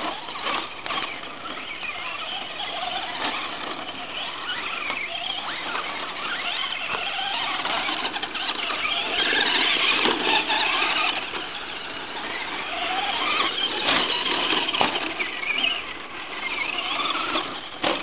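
Brushless electric motors of Traxxas Slash radio-controlled short-course trucks whining, the pitch gliding up and down as the throttle is worked. The whine is loudest about halfway through as a truck passes close, with a few short knocks.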